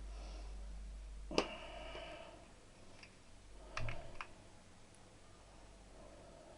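Metal tools and parts clinking: one sharp clink with a brief ring about a second and a half in, then a quick cluster of three or four clicks near the middle.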